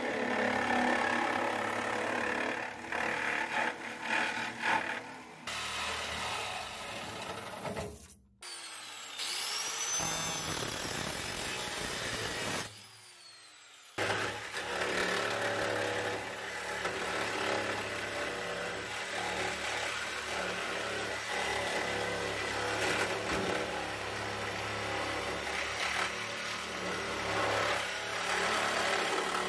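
Sawzall reciprocating saw cutting through the sheet-steel floorpan and floor channel of a Mazda Miata. It runs steadily, with a brief quieter gap about halfway through, then carries on cutting.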